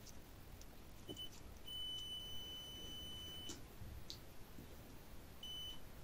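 Multimeter's continuity buzzer beeping as the test probes touch the washing machine motor's tachometer wires: a short beep, a long beep of about two seconds, then another short beep. The beep signals continuity through the tacho coil, with light clicks of probe contact after the long beep.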